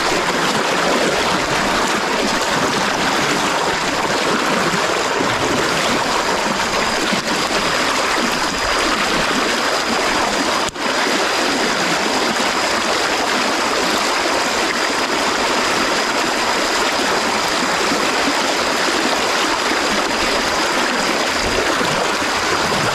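Rocky creek rushing steadily over stones, a constant loud rush of running water with a thin steady high tone above it. It breaks off for an instant about eleven seconds in.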